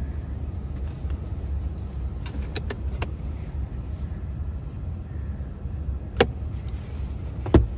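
Plastic clicks of a pickup's sun visor being pulled down and its vanity-mirror cover being flipped. There are a couple of light clicks, then two sharp snaps, one about six seconds in and one near the end. A steady low rumble sits under them in the cab.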